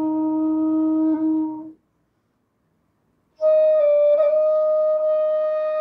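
Punam Flutes bass bansuri in D playing a long, steady low Sa that stops a little under two seconds in. After a short silence, at about three and a half seconds a held note an octave higher begins.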